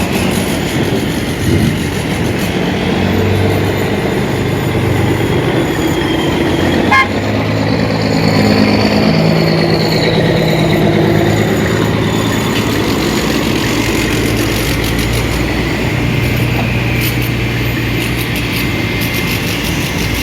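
Heavy diesel dump truck engines running steadily, with a single sharp knock about seven seconds in and a faint high whine that rises and falls shortly after.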